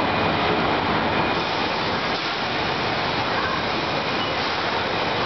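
Steady rushing noise of the air blowers and suction tubes of a foam-ball play structure, running without a break.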